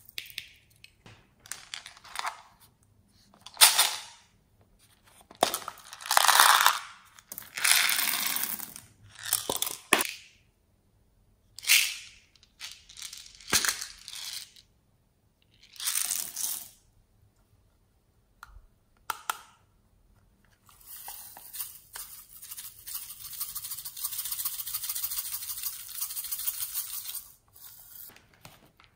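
Small plastic containers of toppings being shaken, tapped and emptied into a bowl of slime, giving a series of short rattling, rustling bursts. Near the end comes a steady rattle of about six seconds as round plastic beads pour out onto the slime.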